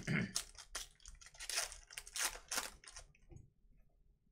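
Foil wrapper of a trading card pack crinkling and tearing as it is ripped open by hand, in a quick run of crackles over the first three seconds, then fading to faint handling.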